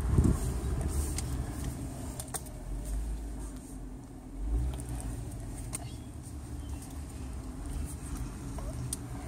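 Car interior noise while driving slowly: a steady low rumble of engine and tyres, swelling briefly about halfway through, with a few light clicks.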